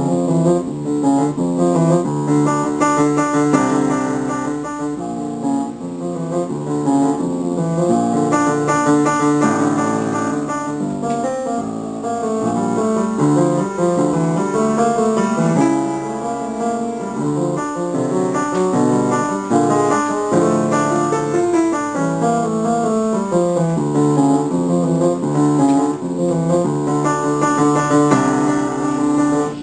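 Solo piano playing a busy, continuous passage of quick notes over a lower bass line.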